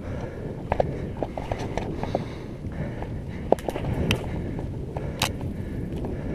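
Mountain bike riding down a wet dirt singletrack: a steady low rumble of the tyres rolling over the ground, with frequent sharp rattles and clicks from the bike over bumps. A brief hiss comes about five seconds in.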